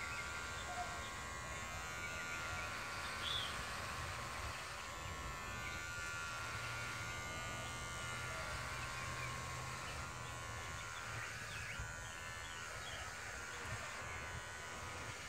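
Electric hair clippers running with a steady buzz as they shave off a man's long hair.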